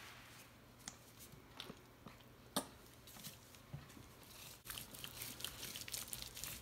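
A few faint clicks and taps from a plastic squeeze bottle of yellow mustard being handled, the sharpest about two and a half seconds in. From about four and a half seconds, soft, quick, wet rubbing as gloved hands spread the mustard over a rack of raw pork ribs.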